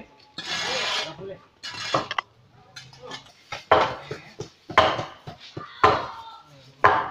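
Raw meat and bone being chopped on a wooden block: four heavy chops about a second apart in the second half, after a short scraping rustle near the start.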